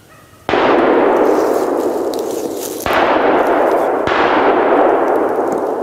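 Three gunshots in the woods during a deer hunt with hounds: the first about half a second in, the second a little over two seconds later, and the third about a second after that. Each is followed by a long echo that dies away slowly.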